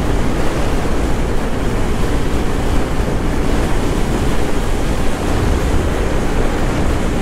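Steady wind rush over a helmet microphone on a motorcycle at road speed, with the Bajaj Pulsar NS200's single-cylinder engine running underneath.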